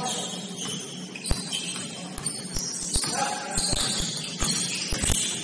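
Basketball game play on an indoor court: irregular thuds of a basketball bouncing, with high, short squeaks of sneakers on the floor.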